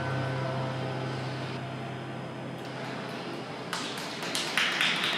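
The last note of figure-skating program music fades out, leaving an ice rink's steady low hum. About three and a half seconds in, scattered sharp clicks and a hissing scrape start and grow louder.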